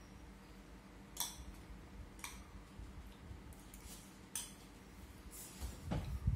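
Wooden chopsticks clicking against a ceramic rice bowl during eating, a few separate sharp clicks, with a duller knock near the end.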